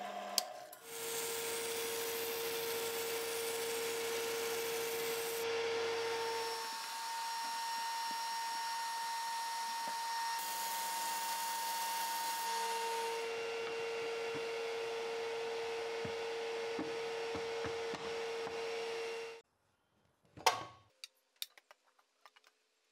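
Disc sander running while a wooden table-saw insert is pressed against the disc and sanded to its drawn line, a steady motor tone under the sanding noise that shifts in pitch at a few points. It cuts off suddenly, and then comes a sharp knock and a few light taps as the wooden insert is set into the saw table.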